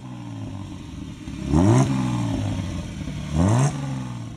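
Vintage Alfa Romeo 6C 2500 straight-six engine blipped three times, each rev rising sharply in pitch and dropping back to a steady idle. The second and third blips are the loudest.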